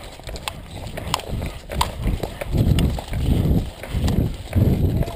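Footsteps through tall dry grass, a heavy step with rustling about every two-thirds of a second. The steps become louder and more regular about two seconds in.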